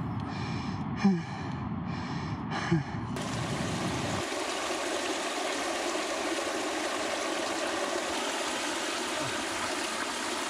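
Steady rushing of flowing water, a stream or small river running, after an abrupt change about 3 seconds in. Before it come two brief loud sounds that slide down in pitch, about a second apart.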